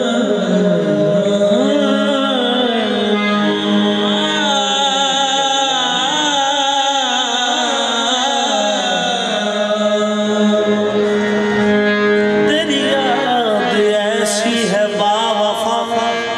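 Qawwali: harmoniums sustain held chords under a singing voice that draws out long notes with a wavering, sliding pitch.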